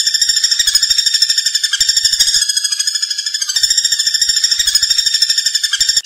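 Common flameback woodpecker calling: a fast, steady rattle of sharp notes, about ten a second, broken briefly about three and a half seconds in and again near the end.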